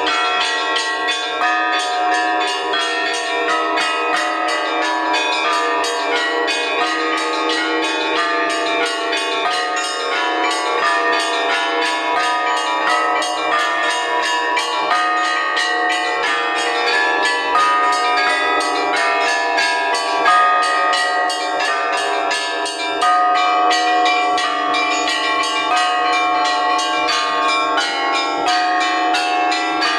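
Russian Orthodox church bells rung by hand in a continuous peal (zvon): many bells struck in quick succession, their tones overlapping and ringing on in a dense, unbroken chime.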